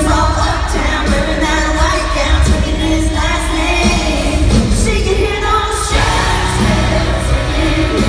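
Live pop-country song played by a band through an arena sound system, with a woman singing the lead, heard from the arena stands.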